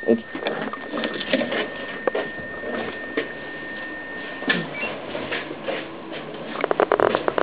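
Intercom door release of an apartment block's entrance sounding a steady high tone for about four and a half seconds while the door is pushed open, with knocks and shuffling footsteps. Near the end comes a quick rattle of clicks.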